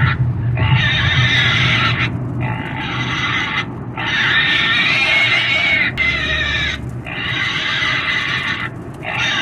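Pig squealing loudly over and over: long, high-pitched screams of a second or two each, one after another with brief breaks for breath.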